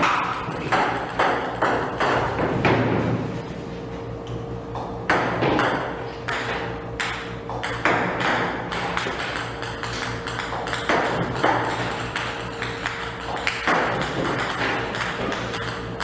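Ping-pong balls shot from a table tennis robot clicking as they bounce on the table, several sharp hits a second at an irregular pace, over background music.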